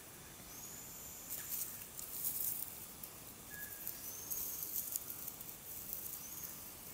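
Dry leaf litter, twigs and bark rustling and crackling in irregular bursts as a hand rummages through it and tugs at a strand of frayed rope.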